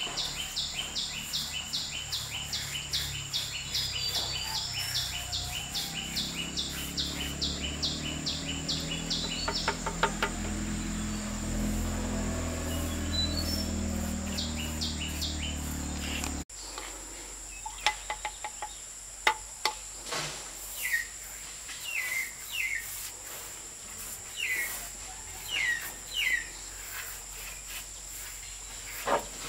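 Insects keep up a steady high drone throughout. For the first half a rapid train of clicks runs over a low rumble; then the sound cuts abruptly and a bird repeats short falling chirps about once a second.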